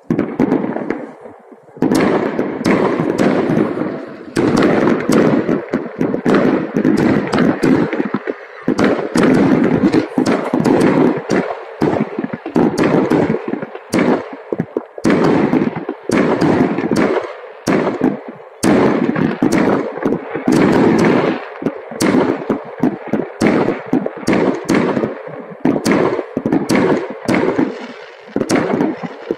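Fireworks and firecrackers going off all over at once: a dense, almost unbroken barrage of bangs and crackling, picking up sharply about two seconds in after a short lull.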